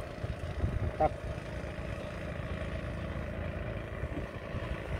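A boat engine running steadily, a low even drone. A brief voice-like sound about a second in.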